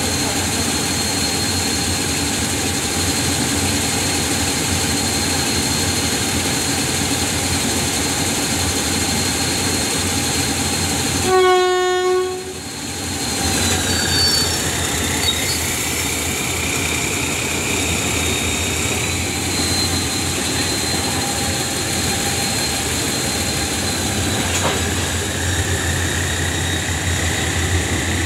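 Diesel locomotive 4048 running with a steady engine drone and a high whine, sounding its horn once in a short blast about twelve seconds in. Afterwards the engine note climbs with a rising whine as the locomotive moves off slowly.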